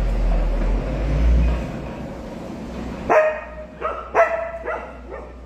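A dog barking about five times in quick succession, starting about three seconds in, after a low rumble.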